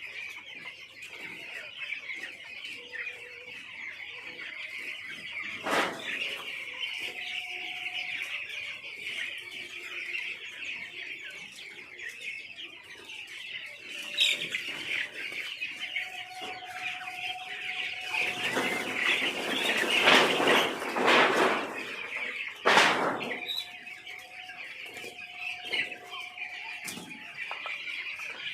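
A large flock of chicks peeping continuously in a dense, high chorus, with louder bursts of flapping and scuffling: a short one about six seconds in, a longer stretch around twenty seconds in, and another soon after.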